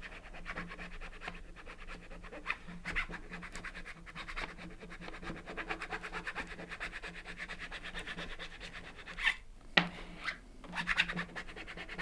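Scratchy rubbing and rustling of a vinyl decal and its paper backing being worked down by hand, a dense run of fine, irregular strokes with a few louder ones, over a faint steady low hum.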